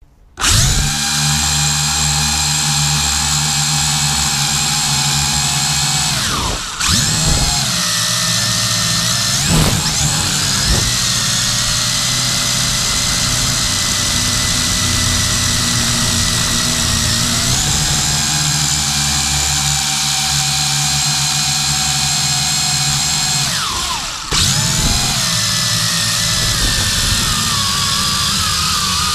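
Small quadcopter drone's electric motors and propellers whining, heard from the drone's own camera. The motors spin up about half a second in, and the whine dips and swoops back in pitch a few times as the throttle changes.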